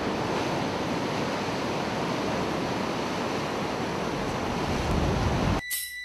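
Big ocean waves breaking: a steady rush of surf that grows a little louder toward the end. It cuts off suddenly about half a second before the end, when music with rhythmic bell-like strikes comes in.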